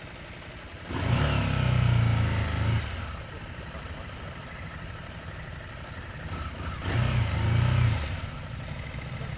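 Motorcycle engine running at low revs, opened up in two throttle bursts, one about a second in and another about seven seconds in, each lasting a second or two before dropping back.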